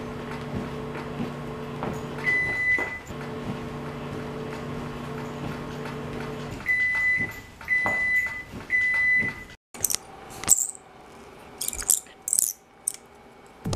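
A steady electrical hum that stops after about six seconds, followed by three short high electronic beeps about a second apart; after a sudden cut, a few short sharp crackling noises.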